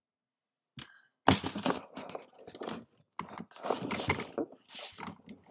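Small plastic toys being handled and rummaged, giving a run of scrapes, clacks and rustles that starts about a second in.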